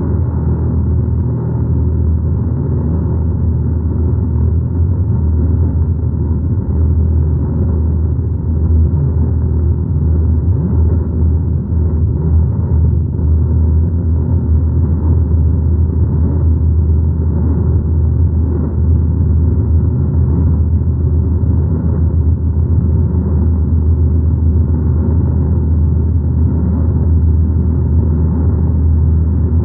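Steady low rumbling drone of experimental ambient noise music, unchanging throughout.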